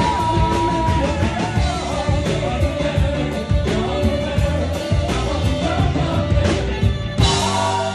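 Live rock band playing with a lead vocal: drum kit keeping a steady beat under electric guitars, keyboard and saxophone. Near the end the drums stop and a held chord rings on.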